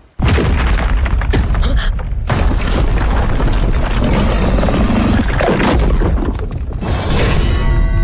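Anime battle sound effects for a giant monster attacking in a cave: a sudden loud boom about a quarter second in, then continuous heavy rumbling and crashing, with a music score underneath. Near the end, a held, pitched tone joins in.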